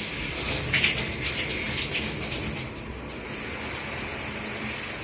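Multi-mode shower head spraying water steadily, splashing down into a bathtub.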